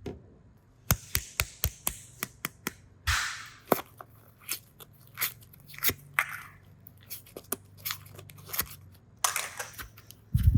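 Toys and packaging being handled: a rapid string of sharp clicks and taps, with two longer bursts of crinkly rustling about three seconds in and near the end.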